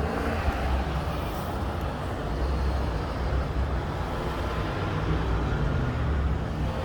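Steady city street traffic noise with a low engine rumble from a heavy vehicle.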